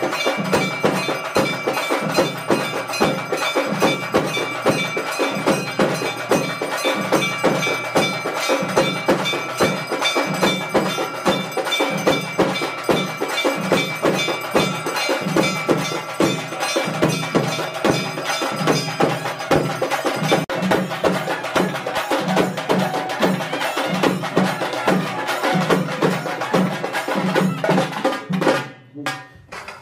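Traditional temple festival percussion music: rapid, steady drumming with ringing tones held above it. It breaks off about a second before the end.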